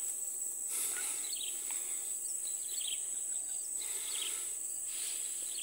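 Steady high-pitched drone of insects in tropical forest undergrowth, with short chirps repeating about once a second.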